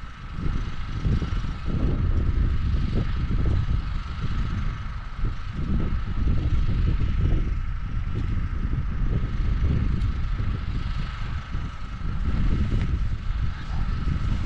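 Wind buffeting the microphone: an uneven, gusting low rumble, with a faint steady high tone underneath.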